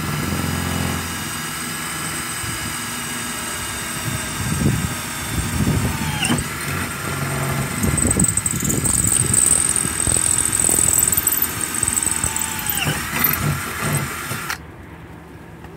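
Cordless drill running under load as its bit bores through a welded metal bracket, with a steady motor whine, irregular grinding from the bit and a high squeal for a few seconds in the middle. The motor's pitch sags twice as the bit bites, and the drill stops shortly before the end.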